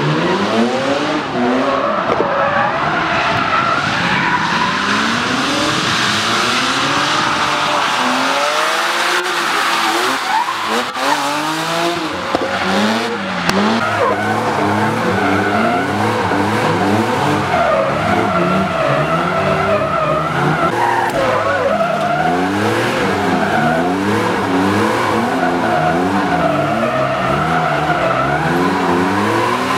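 BMW E36 cars drifting on a wet track: their engines rev up and down again and again as the throttle is worked through the slides, with tyres squealing and hissing underneath.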